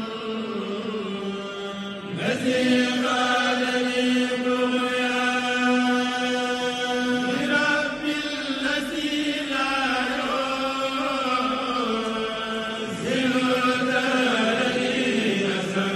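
A man's voice singing a religious chant in long, held notes, the phrases breaking and starting again about every five seconds.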